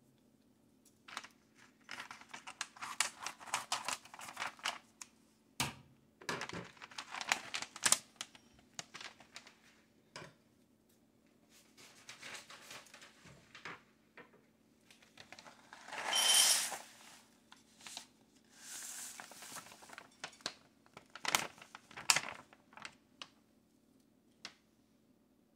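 Plastic Idahoan instant-soup pouch crinkling and rustling in bursts as it is handled and opened, and dry soup mix pouring out of it into a bowl with a smooth rush about two-thirds of the way through.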